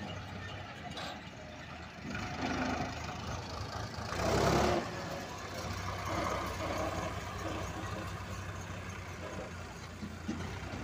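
HMT tractor's diesel engine running steadily as it drives a hitched trolley in reverse, with a brief louder rush of noise about four seconds in.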